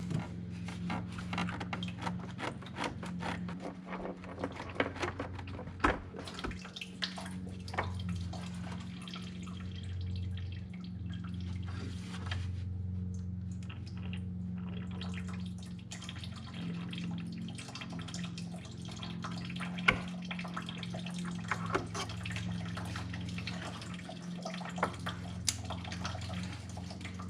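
Engine coolant running and dripping out of a disconnected radiator hose connection, with scattered clicks and knocks from handling the hose and fittings, one sharper knock about two-thirds of the way through. A steady low hum runs underneath.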